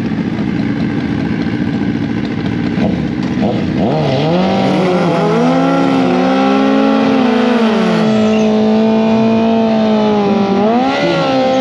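Drag-racing motorcycle engine revving up about four seconds in and held at high, steady revs for several seconds, then dipping briefly and revving up again near the end.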